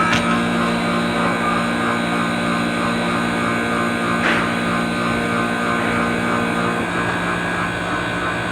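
Manitowoc commercial ice machine running: a steady mechanical hum from its compressor and fan, with a sharp click right at the start and a brief noise about four seconds in.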